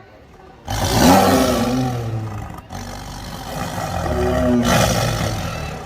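A large wild animal roaring, two loud calls, the first starting suddenly about a second in and the second near the end.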